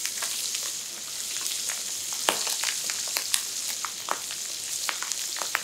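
Chicken thighs searing skin-side down in browned butter in a frying pan over high heat, sizzling steadily with frequent sharp crackles and pops as the skin crisps.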